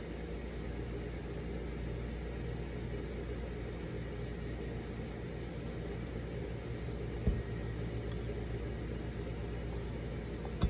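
Steady low mechanical hum with a light hiss, broken by a short knock about seven seconds in and another near the end.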